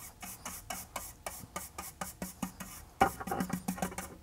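Quick, rhythmic rubbing strokes of a hand-held pad or brush scrubbing a particleboard workbench top, about four strokes a second, getting louder about three seconds in.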